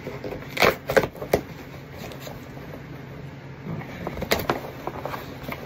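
Cardboard shipping box being opened by hand: a few sharp rips and crackles of packing tape and cardboard flaps, loudest about a second in, with a low steady hum underneath.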